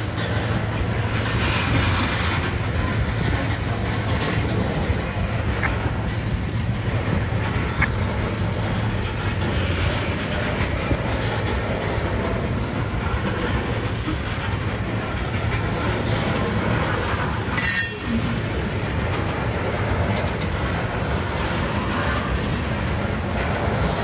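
Norfolk Southern freight train rolling past at a grade crossing: a steady rumble of railcar wheels on the rails, with clickety-clack over the joints.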